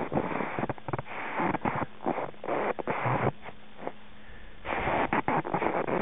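Wind buffeting the microphone in gusts, a rough rushing noise that keeps breaking off for moments. It eases for about a second past the middle and comes back strongest near the end.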